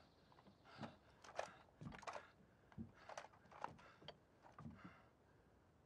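Near silence with faint, irregular scuffs and clicks, about ten in all, from a man shifting his footing and handling a scoped rifle.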